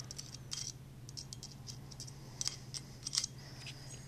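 Light, irregular metallic clicks and ticks from fingers handling a disassembled M60 machine gun bolt and its extractor spring, over a faint steady low hum.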